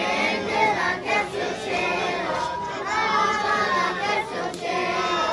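A group of voices singing together.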